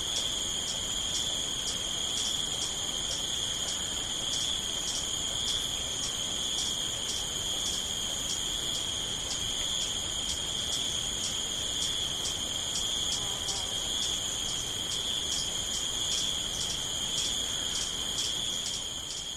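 Chorus of crickets and other insects: a steady high-pitched trill overlaid by regular chirps about two to three times a second.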